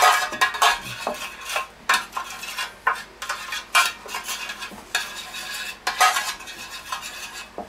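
A spoon stirring and scraping around a metal tray, mixing an oil-and-herb marinade, in quick, irregular scrapes.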